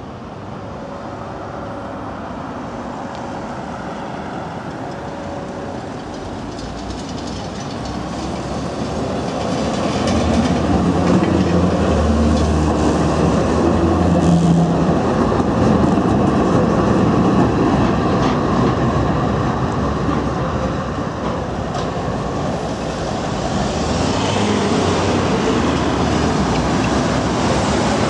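Tram approaching and passing close by, its wheels rumbling and clicking on the rails, growing louder to a peak about halfway through and then easing off.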